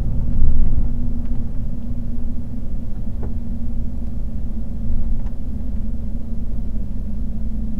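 Steady engine drone and road rumble of a moving vehicle heard from inside the cab, with a low hum held at one pitch.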